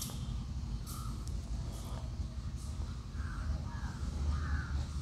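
Crows cawing in several short calls, over a low steady rumble.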